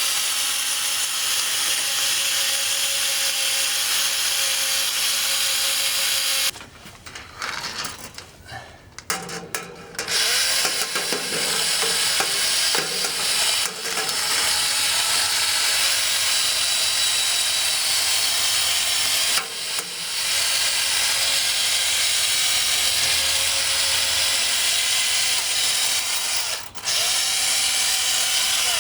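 Cordless drill, set in reverse, spinning a metal plumber's snake down a sewer pipe clogged with kitchen grease. It runs in long stretches with short stops: a choppier pause about a quarter of the way in, and brief breaks past the two-thirds mark and near the end.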